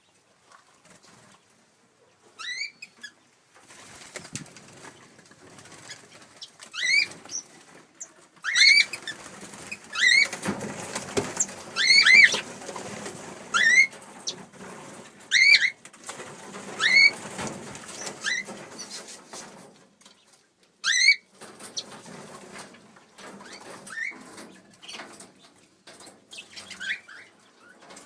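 Mixed small aviary birds calling: one bird repeats a short, loud, rising call every second or two, over softer chatter and rustling from the rest of the flock that swells in the middle and dies down near the end.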